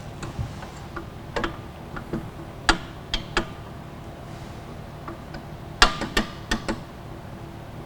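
Irregular metallic clicks and clinks of tools and parts being fitted into a floor sander's top roller assembly, over a steady low hum. A quick run of several clicks comes about six seconds in.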